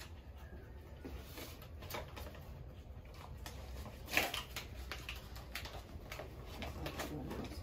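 Six-week-old Cane Corso puppy's claws clicking and tapping on a laminate exam table as it is held and shifts its feet, with a brief whimper about four seconds in, over a low steady room hum.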